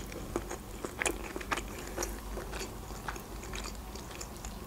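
A person chewing a mouthful of breaded chicken nuggets, with irregular small crunches and mouth clicks, a few a second.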